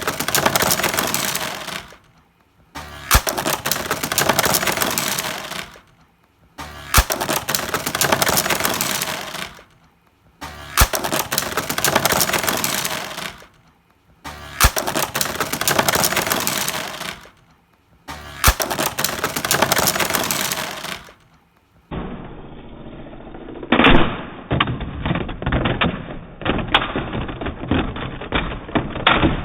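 Beyblade spinning tops clashing and rattling against each other in a plastic stadium. The sound comes in six separate stretches of about three seconds each, each one opening with a sharp snap. Near the end it turns into a duller run of rapid plastic clicks and clatter, with one hard hit.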